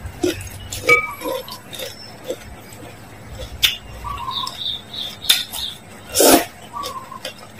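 Close-miked eating of noodles: wet mouth clicks and smacks, a few short high squeaks, and a louder slurp of noodles about six seconds in.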